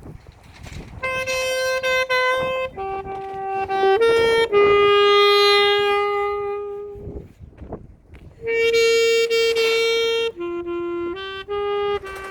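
Solo alto saxophone playing a slow melody in long held notes, in two phrases with a short break a little past the middle.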